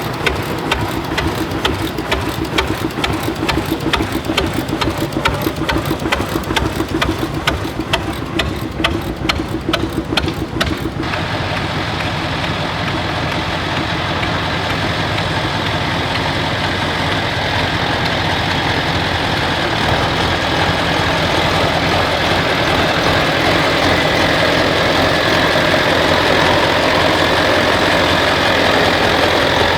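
An engine running with an even popping beat, about six strokes a second. Then an abrupt change about eleven seconds in, to a steadier, smoother machine noise that slowly grows a little louder.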